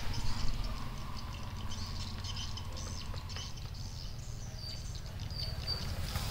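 A kitten eating wet food from a plastic tray: a run of small, soft chewing and licking clicks. A few short, high chirps come near the end over a steady low rumble.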